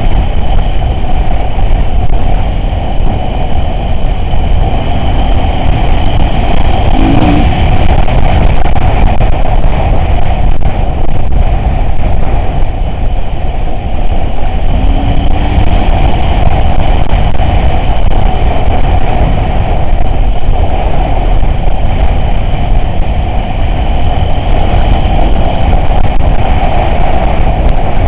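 Vehicle engine running steadily while driving, loud and even with no let-up.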